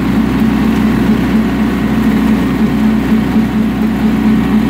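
Bobcat compact tractor engine running at steady revs, not labouring, with an even low pulsing note.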